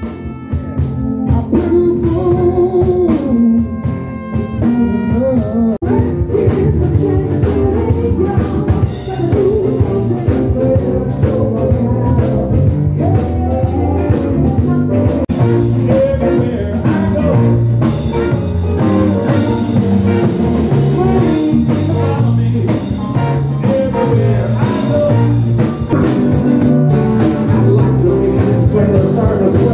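Live blues band music with electric guitars, bass, drums, keyboard and a singer, changing abruptly between songs a few times. A trumpet plays held notes in the first few seconds.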